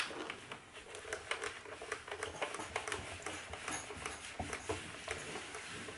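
A steam iron being set down and pressed over cotton fabric on an ironing mat, with many small irregular clicks, taps and rustles of the iron and the cloth being handled.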